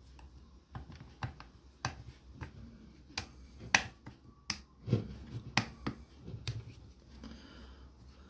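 Screwdriver working the screws of a small router's base plate: about ten sharp metal clicks and taps at uneven intervals, with a few duller knocks in the middle.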